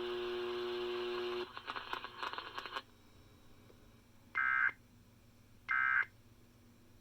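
Emergency Alert System end-of-message data bursts: short harsh digital squawks about 1.3 s apart, two of them plus a third starting right at the end, marking the close of the warning broadcast. Before them, a steady hum of several tones cuts off about 1.5 s in, followed by about a second of crackly static.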